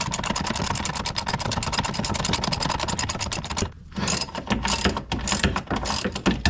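Rapid mechanical clicking of a tool undoing the last bolt on a Porsche 911 rear spring plate, with a short pause about three and a half seconds in before it starts again.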